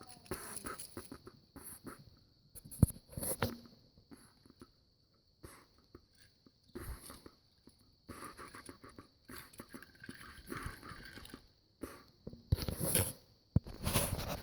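Irregular handling noise: scrapes, taps and clicks, the loudest about three seconds in and again near the end.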